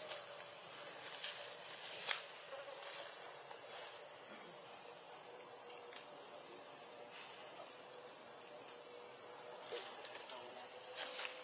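Steady high-pitched drone of insects, with a single sharp click about two seconds in.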